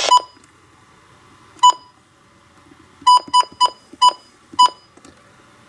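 Midland WR-100 weather radio giving seven short, identical electronic beeps as its buttons are pressed to step through the channels: one at the start, one about a second and a half in, then five in quick succession. Between the beeps the radio's speaker stays quiet. The broadcast is cut off as the first beep sounds.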